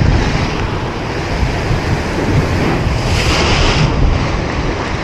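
Sea surf breaking and washing over rocks, with wind buffeting the microphone; a brighter hiss of rushing water about three seconds in.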